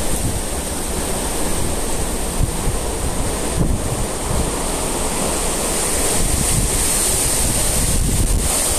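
Hurricane wind and driving rain in a steady loud rush, the wind buffeting the phone's microphone with a low rumble.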